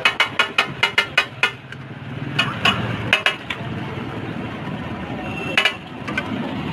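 Metal spatula striking the steel griddle in quick clinks, about four a second, stopping about a second and a half in; a few scattered clinks follow over low street background noise.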